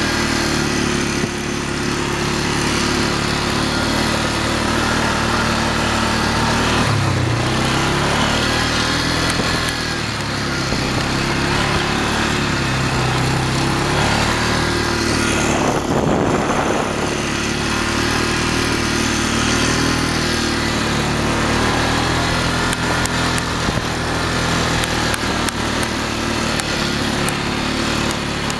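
Polaris Sportsman 500 ATV's single-cylinder four-stroke engine running under way while riding, its pitch rising and falling with the throttle. A short rush of noise comes about halfway through.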